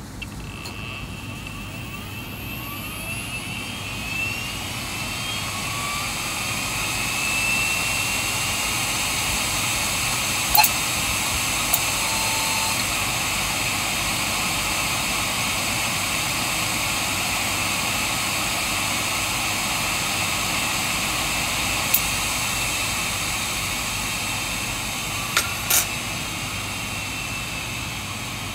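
Open hard disk drive, cover removed, spinning up: its whine rises in pitch over the first several seconds, holds steady while the platters run at speed, then falls as the drive spins down near the end. A few sharp clicks come through the run, two close together shortly before the spin-down.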